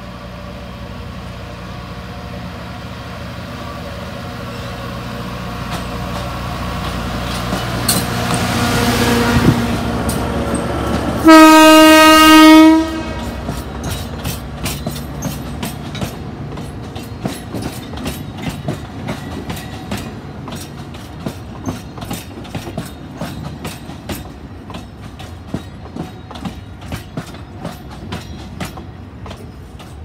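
Alishan Forest Railway narrow-gauge diesel locomotive approaching, its engine rumble growing louder, then one loud horn blast about eleven seconds in lasting a second and a half. The passenger cars then roll slowly past, their wheels clicking steadily over the rail joints.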